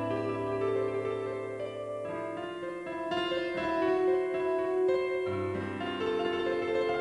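Background piano music: slow sustained chords that change every second or two.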